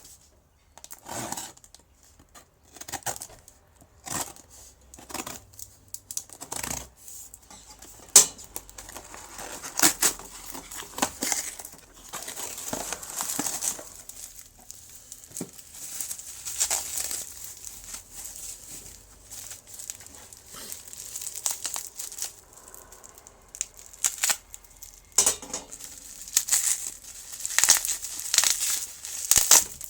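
Packaging being torn open and crumpled by hand: irregular rips and crinkling rustles come one after another while a parcel is unwrapped.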